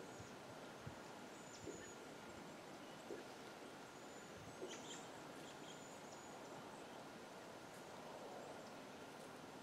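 Quiet woodland ambience: a steady faint hiss with a few short, faint, high bird chirps, about two seconds in and again around five seconds, and a few light ticks.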